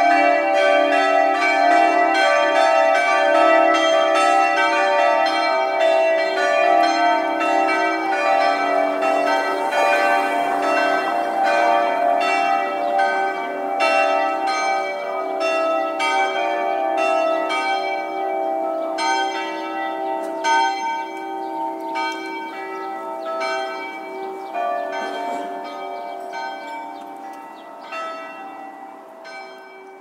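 Several church bells ringing together in a peal, strokes following one another fast and overlapping. The peal slowly dies away over the second half.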